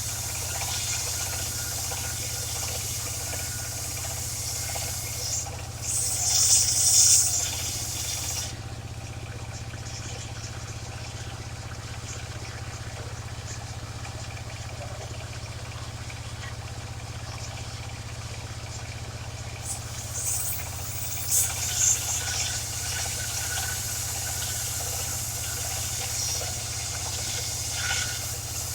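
Engine of a mobile circular sawmill running steadily while its blade rips waru wood, with a hissing noise over the engine hum. The cutting noise swells louder twice, about six seconds in and again around twenty seconds in.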